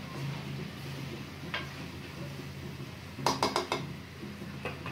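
Metal spatula scraping and clinking against an aluminium kadai while stirring chickpeas, with a quick run of four or five clinks a little past the middle.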